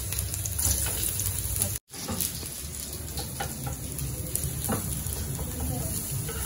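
Sliced garlic sizzling in hot oil in a nonstick frying pan, with a steady hiss. The sound cuts out for a moment about two seconds in; after that, a wooden spatula scrapes and stirs the garlic around the pan.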